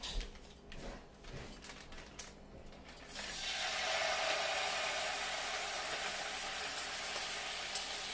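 A few faint clicks and rustles, then, about three seconds in, thawed sofrito squeezed from a plastic bag hits hot oil in a frying pan and sizzles steadily.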